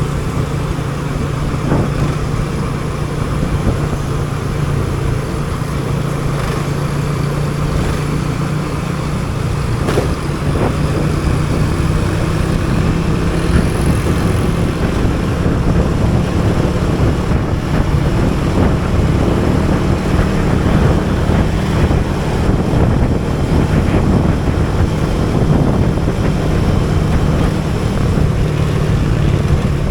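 Motorcycle engine running at a steady pace, a constant low hum, mixed with road and traffic noise.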